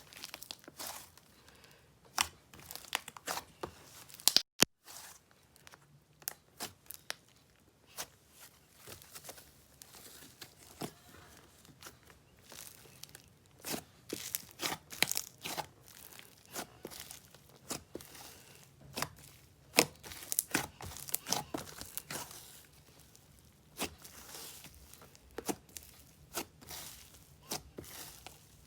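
Slime being squished, stretched and poked by hand, making many irregular sticky clicks, crackles and small bubble pops.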